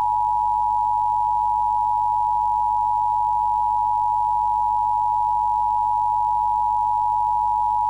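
Weather radio warning alert tone: one steady, loud, pure high tone held for about eight seconds, starting and stopping abruptly, marking a test of the warning alert system.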